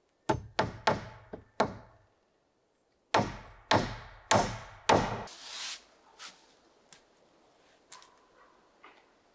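Hammer driving nails into wood at a roof edge: a quick run of five blows, a pause of about a second, then four more evenly spaced blows, followed by a short hissing scrape.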